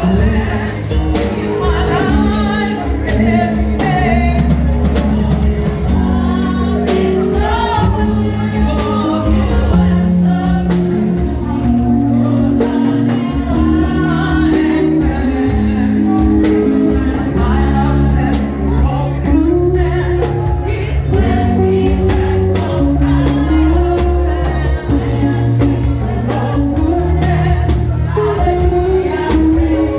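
A group of women singing together, one voice leading on a microphone and the others joining, over live keyboard and drum-kit accompaniment with a steady beat.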